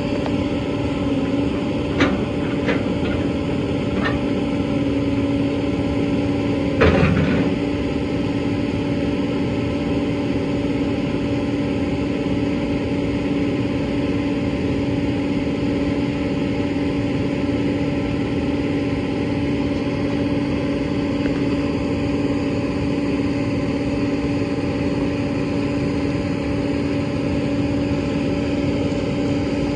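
Hitachi EX200-3 excavator's six-cylinder Isuzu diesel running steadily with a constant hum while the boom and bucket are worked. There are a few light clicks in the first seconds and a single louder knock about seven seconds in.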